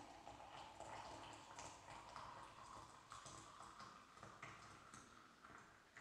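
Water poured from a red enamel kettle in a thin stream into a glass French press of coffee, a faint steady trickle whose pitch rises slowly as the press fills.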